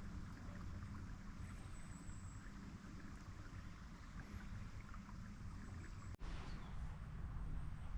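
Wind gusting over the microphone outdoors: a steady low rumble under an even hiss, broken by a brief dropout about six seconds in.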